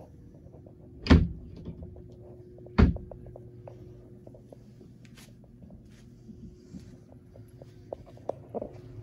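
Two sharp knocks about a second and a half apart, the sound of a yacht's cabin door being handled, with a few faint ticks over a low steady hum.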